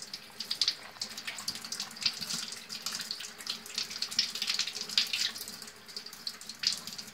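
Water splashing and trickling in many small, irregular spurts.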